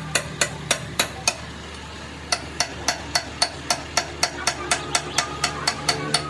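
Hammer blows on metal, ringing at each strike, coming about four a second with a break of about a second near the start. A low steady hum runs underneath.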